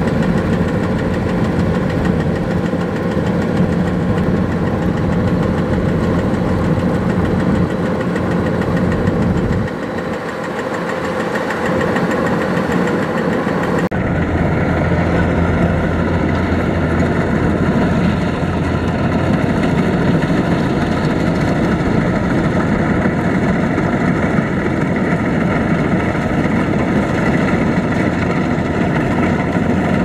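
Kubota DC-105X combine harvester's diesel engine running steadily as the machine harvests rice. The sound changes abruptly about halfway through, to a deeper, steadier hum.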